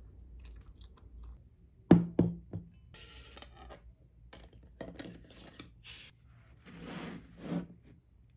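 Hands tidying a wooden desk: a few sharp knocks about two seconds in, then rustling and rubbing of paper and hands on the desktop.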